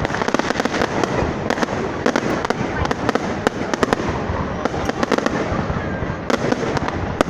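Fireworks going off in quick succession: a dense, irregular stream of sharp bangs and crackles with no let-up.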